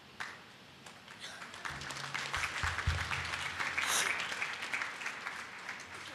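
Congregation clapping, building up about a second in and fading away near the end.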